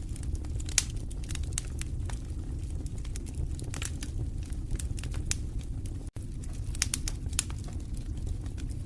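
Wood fire in a fireplace crackling, with irregular sharp pops and snaps over a steady low rumble of burning logs. The sound cuts out for an instant about six seconds in.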